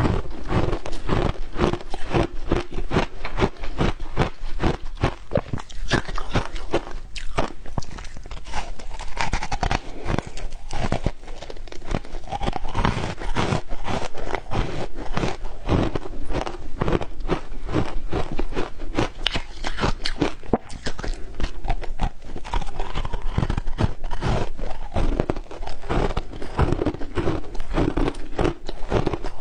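Matcha-dusted shaved ice crunching loudly as it is bitten and chewed, a dense run of rapid crackling crunches that hardly lets up.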